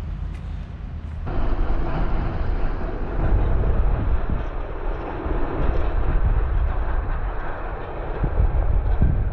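A tram running on its rails: a steady low rumble, with a rush of running noise that comes up suddenly about a second in and stays loud.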